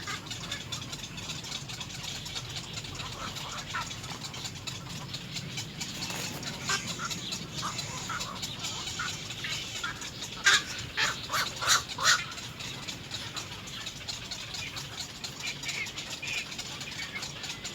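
Little egret chicks at the nest giving harsh, short begging calls, scattered throughout, with a louder cluster of sharp calls about ten to twelve seconds in.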